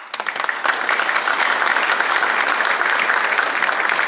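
Steady applause from a large group of people clapping their hands, dense and even throughout.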